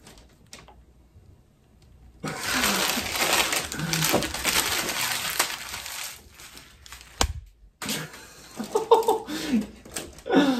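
Gift-wrapping paper being torn off a box and crumpled, a few seconds of dense rustling starting about two seconds in. Scattered handling clicks follow, with one sharp knock.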